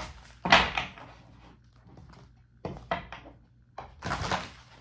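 Tarot cards being shuffled and handled in three short bursts of card noise.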